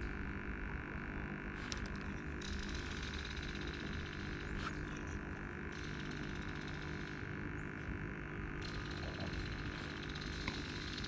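Steady outdoor background with a low hum and a high, insect-like buzz that starts, stops, and starts again.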